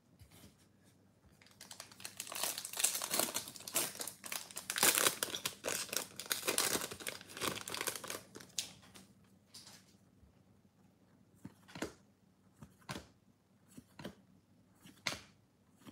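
A 2022 Bowman baseball card pack's foil wrapper crinkling and being torn open. From about ten seconds in, the cards are slid off the stack one by one, a light snap about once a second.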